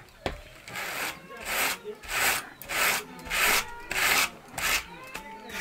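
Raw wool being carded by hand with a wooden, wire-toothed hand card: a steady rhythm of about eight rasping strokes, a little over half a second apart.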